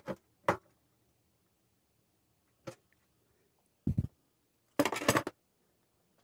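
Separate clicks and knocks from a socket ratchet finishing the nuts on a stainless steel slow cooker base, then being lifted off and set down. The busiest handling comes four to five seconds in, as a short cluster of clatters.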